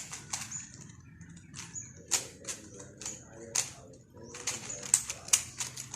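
A Rubik's cube being scrambled: its plastic layers snap through quick turns in irregular runs of sharp clicks and clacks.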